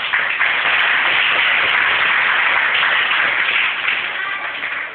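Audience applauding, starting suddenly and tapering off near the end.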